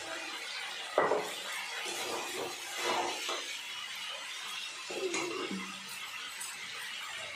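Metal spatula stirring and scraping chilli cauliflower in a black kadai, with a sharp clink of metal on the pan about a second in and further scraping strokes around three and five seconds.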